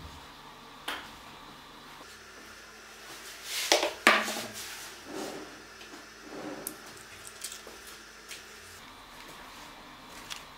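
Small black plastic camera-mount parts and a steel bolt handled in the hands, clicking and clattering, with the loudest clatter about four seconds in and lighter ticks after.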